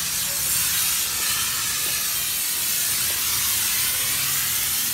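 Snow foam sprayer hissing steadily as its hose nozzle sprays thick foam over a car's body.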